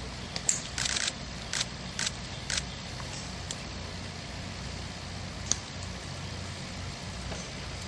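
Camera shutters clicking: a quick run of short clicks in the first two and a half seconds and a single one about five and a half seconds in, over a steady low outdoor rumble.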